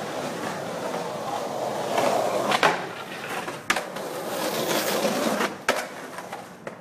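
Skateboard wheels rolling over rough concrete, growing louder as the board comes close, then fading near the end. Several sharp clacks of the board hit the ground, the loudest about two and a half seconds in.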